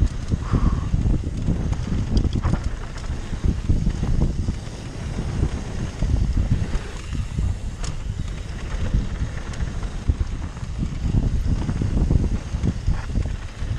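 Mountain bike descending a dirt and gravel trail at speed: wind noise buffeting the microphone over the rumble of knobby tyres on loose ground, with a few sharp clicks and rattles from the bike over bumps.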